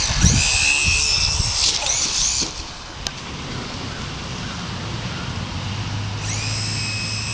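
Radio-controlled airplane's motor giving a high-pitched whine that fades out after about two and a half seconds and comes back about six seconds in, with some low rumbling in the first second or two.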